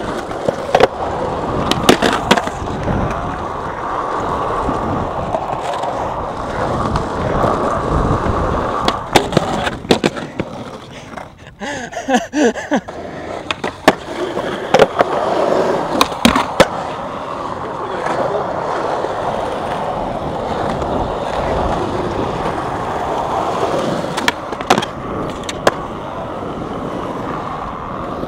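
Skateboard wheels rolling over rough, cracked concrete, with several sharp clacks of the board popping and landing. The rolling dies down briefly about halfway through.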